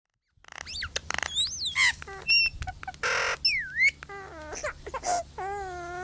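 Pet myna bird calling in a quick string of varied sounds: whistles, rising and falling glides, clicks and a short rasping burst. From about five seconds in comes a long wavering wail, the myna's imitation of a human baby crying.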